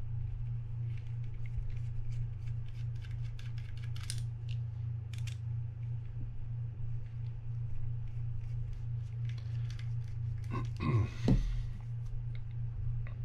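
Small screwdriver backing out tiny screws on a Penn Spinfisher 5500SSV spinning reel's rotor: light clicks and scrapes of metal on metal, over a steady low hum. About eleven seconds in, a louder clatter as the reel is handled.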